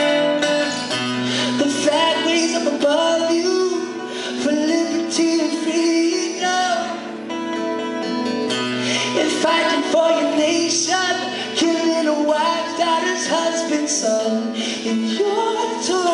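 Live acoustic song: two acoustic guitars played together under a man's lead singing.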